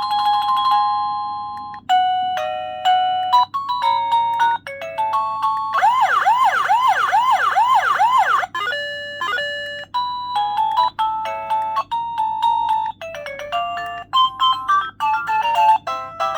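Caregiver pager receiver playing its built-in electronic melodies one after another as they are cycled through to choose one: short beeping doorbell-style tunes, with a fast, repeated rising siren-like warble for a couple of seconds about six seconds in.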